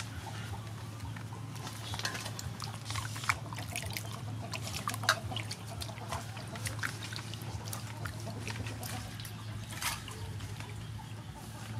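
Fresh vegetables being washed by hand in a steel bowl of water: water splashing and dripping as leaves and cucumbers are swished and lifted out, in many short irregular splashes.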